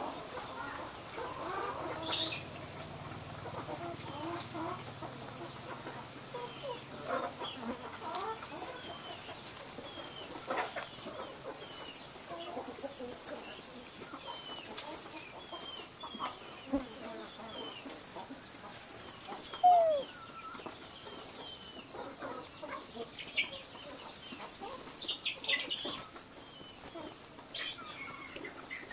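Bird calls, mostly short high chirps about two a second with occasional clucks and one louder falling call about twenty seconds in, over scattered rustles and clicks of a young macaque handling banana-leaf wrapping as it eats sticky rice.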